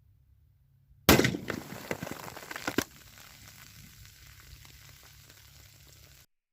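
A single .30-30 rifle shot from a Marlin lever-action about a second in, followed by soda cans bursting and spraying, a fizzing hiss with a couple more sharp pops near the two- and three-second marks. The fizz fades to a faint hiss and cuts off shortly before the end.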